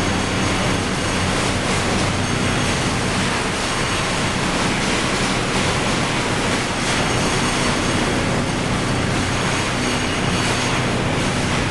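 Komatsu BR200T-1 tracked tub grinder running, its Komatsu SA6D125E2-A six-cylinder diesel giving a steady low hum under a loud, dense mechanical clatter and rush from the machine.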